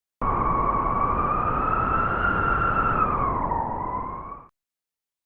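A single long wolf howl, holding one pitch that climbs slowly, dips near the end and lifts again, over a steady rush of noise. It starts and cuts off abruptly.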